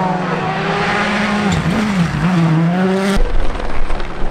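Ford Puma Rally1's turbocharged four-cylinder engine at high revs as the car slides through a gravel corner, with tyres hissing on loose stones. The engine note dips twice about two seconds in as the driver lifts and shifts. About three seconds in it cuts off abruptly to a low, steady rumble.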